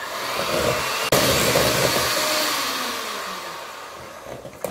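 Electric hand mixer running, its beaters whipping butter and condensed milk cream in a glass bowl. It gets suddenly louder about a second in, then slowly fades.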